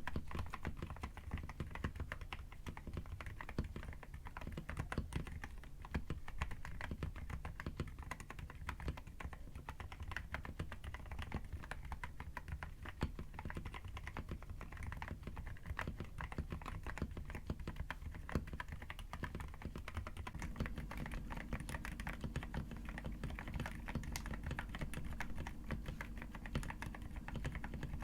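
Mechanical keyboard fitted with Akko Haze Pink silent linear switches, typed on continuously in a quick, uneven run of keystrokes.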